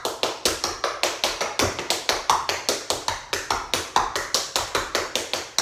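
Tap shoes dancing a fast tap combination on a bamboo floor mat: a quick, even run of metal taps, about six a second.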